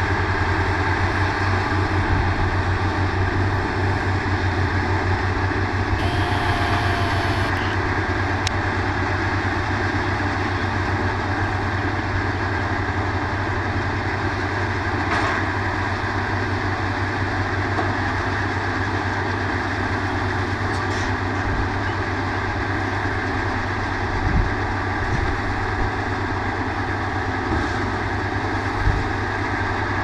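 Tractor engine running steadily as it powers a Feraboli Trotter Omnia round baler-wrapper at work, a constant low hum with the baler's machinery noise over it. A few brief knocks come near the end.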